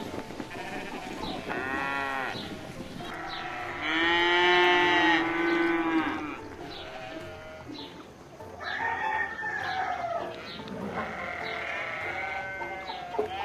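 Livestock calling: several drawn-out calls, the loudest and longest about four seconds in, with more near the middle and the end.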